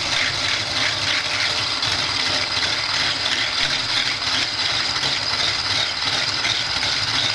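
Immersion blender with a whisk attachment running steadily, its wire whisk beating egg whites in a mixing bowl toward soft peaks.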